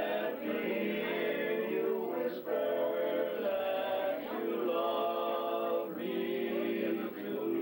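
A male vocal quartet singing a cappella in harmony, holding each chord for a second or two before moving to the next.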